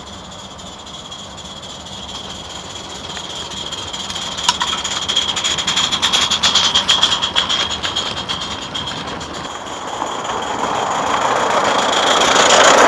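Mamod live steam model locomotive running past: a steady high steam hiss with rapid chuffing exhaust beats that swell as it draws close and then fade, with a rushing noise building up near the end.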